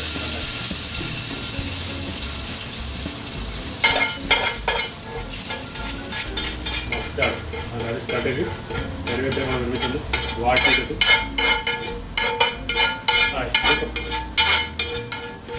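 Hot tempering (tadka) of oil and green herbs tipped from a frying pan into a pot of dal fry, sizzling with a steady hiss that eases over the first four seconds. Then a run of sharp crackles and clicks that grows denser toward the end.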